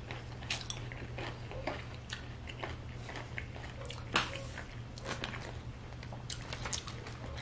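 Close-up chewing of a crunchy battered onion ring: a mouth chewing with scattered crisp crunches and wet clicks, the sharpest crunch about four seconds in.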